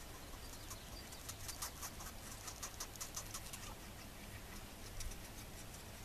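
Northern Flicker nestling begging at the nest hole while being fed: a rapid string of faint, scratchy high ticks from about a second in until nearly four seconds in, then fading out.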